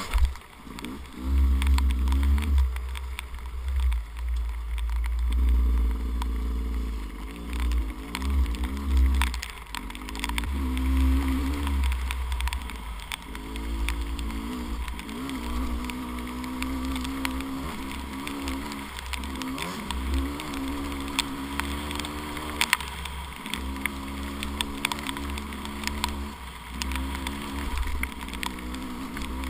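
Two-stroke 300cc dirt bike engine on a trail ride, revving in repeated bursts that rise and fall in pitch, with short breaks as the throttle is rolled off and on, over a steady low rumble and scattered ticks.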